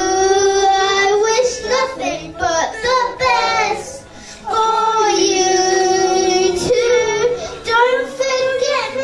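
Song soundtrack: a solo voice singing a slow ballad, holding two long notes with shorter phrases between them.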